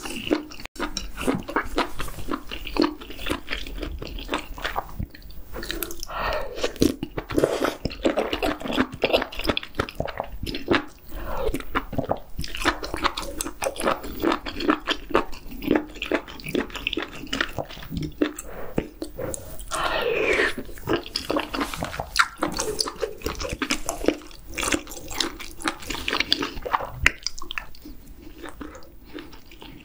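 Close-miked eating sounds: wet chewing and slurping of octopus hot pot with chewy jjolmyeon noodles, made of many small wet clicks with a longer slurp about two-thirds of the way through.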